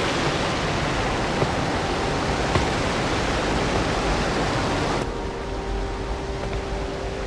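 Steady rush of falling water from a music video's soundtrack, with faint held tones coming in about five seconds in.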